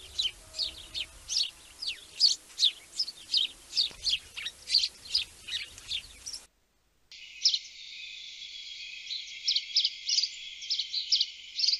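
Small birds chirping in a rapid run of short, high, downward-sweeping chirps, about three a second. After a brief break about six seconds in, a second bird recording follows, with a thin steady high tone under scattered chirps.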